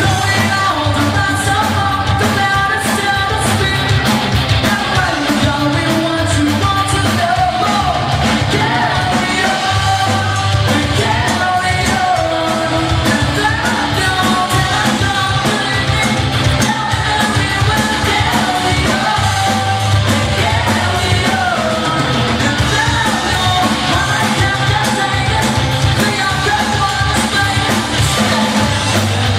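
Live rock band playing a song with a male lead vocal over electric guitar, bass guitar, drums and keyboards, loud and continuous throughout.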